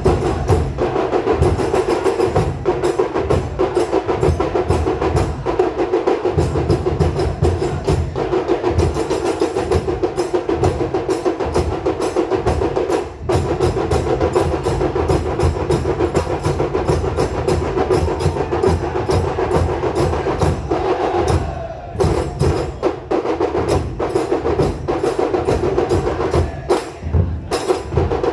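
Festival drum troupe playing a fast, driving rhythm: deep drum beats under rapid, sharp strikes, with a brief break a little past two-thirds of the way through.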